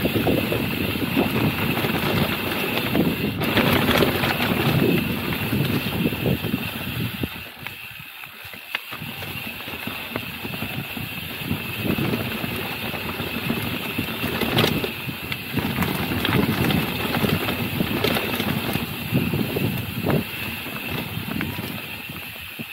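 Mountain bike riding along a rough dirt trail: a loud, uneven rush of tyre and rattle noise that dips briefly about eight seconds in.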